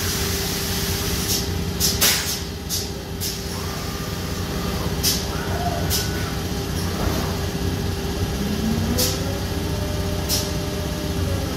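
Busellato Jet Plus 5 WF CNC machining centre running: a steady hum with a constant high tone from the spinning spindle. Short sharp air hisses come several times, and whining glides in pitch rise and fall near the end as the axes move.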